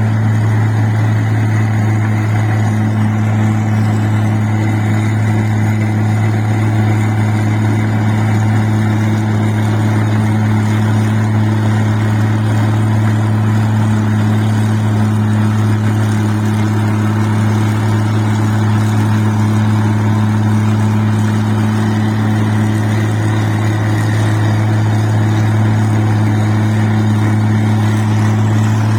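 Rice-processing machine (mesin padi) running steadily, a constant low hum with no change in speed.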